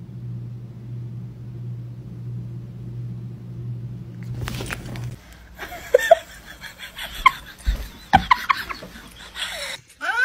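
A low steady hum for about the first five seconds, then scattered short knocks and voices, and right at the end a cat in a pet carrier starts a loud meow.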